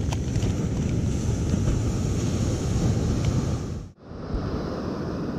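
Wind buffeting the microphone over the wash of surf, a steady low rumble. It drops out briefly about four seconds in, then resumes.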